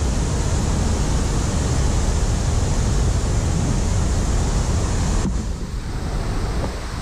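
Steady rush of weir water mixed with wind buffeting the microphone. The hiss drops abruptly about five seconds in.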